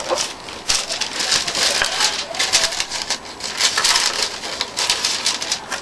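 Tissue paper inside a cardboard shoebox rustling and crinkling as hands pull it open and lift it out, in irregular crackly bursts.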